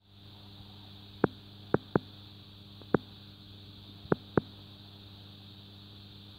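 Steady low hum of a small fishing boat's engine running, with six sharp knocks from work aboard scattered through it, two of them in close pairs.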